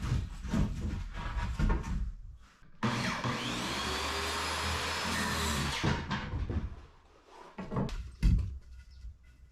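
A handheld power tool's motor runs for about three seconds, its pitch shifting as it spins, with wooden knocks and handling clatter before and after.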